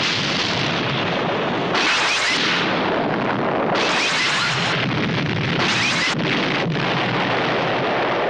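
Film sound-effect explosions against a spacecraft: one continuous blast noise, renewed by three fresh bursts about two seconds apart.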